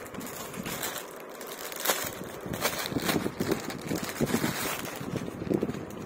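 Rustling and crackling of folded suit fabric being handled and shifted about, in short irregular rustles that are loudest about two seconds in.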